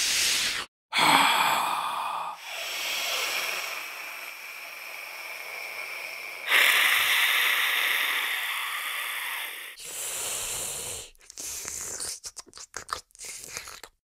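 Vampire creature sound effect: a series of breathy, raspy hisses and drawn breaths, one long strong hiss in the middle, ending in a fast stutter of short choppy gasps.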